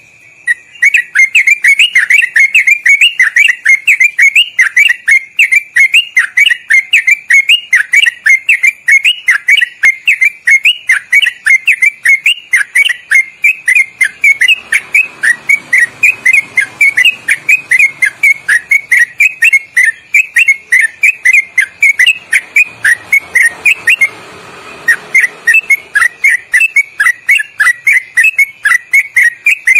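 Yellow-vented bulbul singing a long, loud run of rapid whistled notes (ropelan) with quick turns in pitch, several notes a second. The run has one short pause about three-quarters of the way through.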